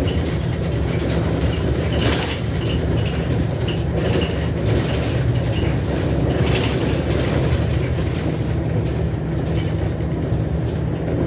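Service bus running, heard from inside the passenger cabin: a steady low diesel engine hum with short rattles now and then, the clearest about 2, 4.7 and 6.5 seconds in.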